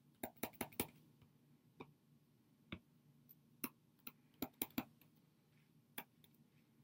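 A stylus tapping and clicking on a tablet screen during handwriting: irregular light clicks, bunched near the start and again a little past halfway, with near quiet between.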